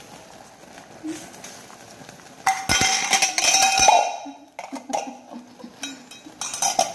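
Metal tongs scraping and clanking against a stainless steel pot of boiling corn, with a ringing metallic scrape lasting about a second and a half near the middle. Near the end the metal lid clinks against the pot.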